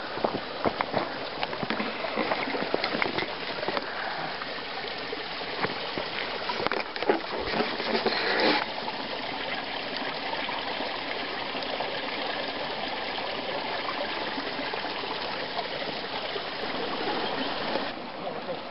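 Creek water running, a steady rushing that stays the same throughout. Scattered knocks and rustles sound over it in the first half.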